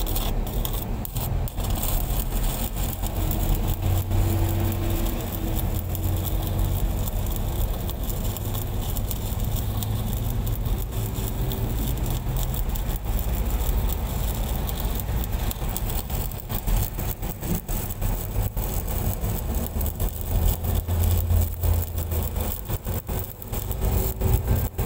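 Stick (shielded metal arc) welding on a large steel pipe joint: the arc crackles and sputters, more densely in the second half. Underneath runs the steady low hum of an engine.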